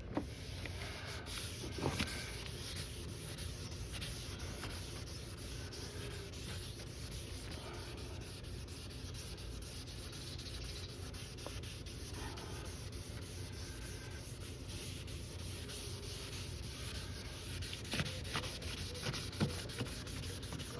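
Wet sanding of a plastic car headlight lens by hand with 1000-grit sandpaper on a sanding block: a steady back-and-forth rubbing. This stage smooths out the coarser 600-grit scratches. A few light knocks come near the end.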